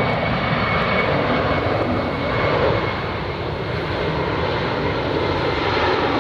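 A C-17 Globemaster III's four turbofan jet engines running loud as the airliner-sized transport flies past, a steady rushing roar with a thin high whine in it.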